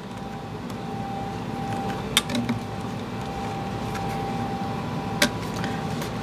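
Two sharp clicks, about two seconds and five seconds in, as a sling swivel is worked into a clamp-on front sling mount on a lever-action rifle's magazine tube, over a steady low hum.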